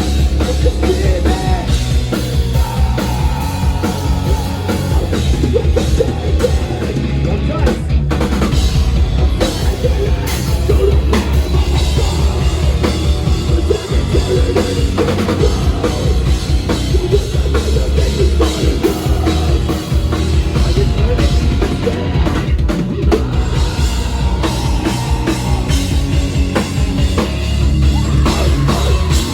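Live rock band playing an instrumental stretch without vocals, the drum kit prominent over a heavy bass end.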